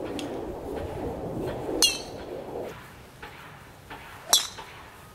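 Two golf club strikes on balls off the tee, each a sharp metallic crack with a short ring, about two and a half seconds apart.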